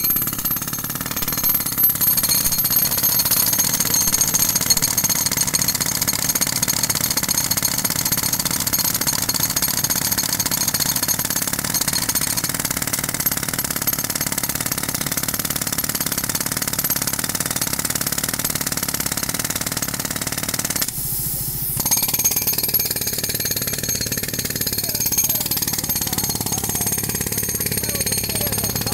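Pneumatic jackhammers hammering rapidly and steadily into a reinforced-concrete bridge slab, breaking it up. The hammering stops briefly a little over two-thirds of the way through, then resumes.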